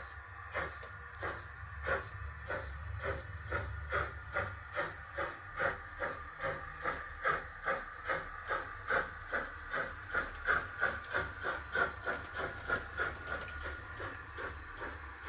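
Steam locomotive sound from a model BR 50's ESU LokSound 5 XL decoder through its loudspeaker: rhythmic chuffs with a hiss, over a steady low hum. The chuffs quicken from about one and a half to over three a second as the locomotive picks up speed.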